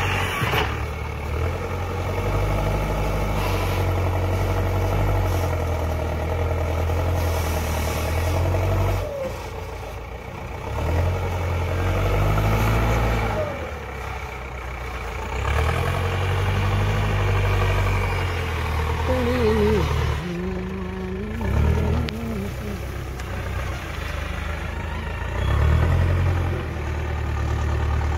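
JCB backhoe loader's diesel engine revving up in repeated surges of a few seconds as the front loader bucket digs into and lifts earth, dropping back toward idle between passes.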